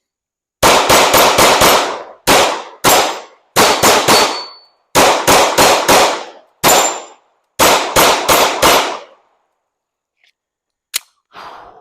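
Glock 19 9mm pistol fired in rapid strings, about twenty shots over some nine seconds, each with a short echoing tail, the pistol cycling without a stoppage. A single click follows near the end.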